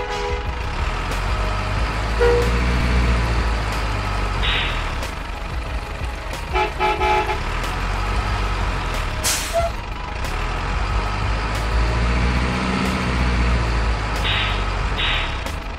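Heavy diesel truck sounds: a steady low engine rumble, with short horn toots about two and seven seconds in and a sharp air-brake hiss a little past nine seconds. These accompany a radio-controlled Isuzu Giga dump truck model whose real drive is a small 540 electric motor.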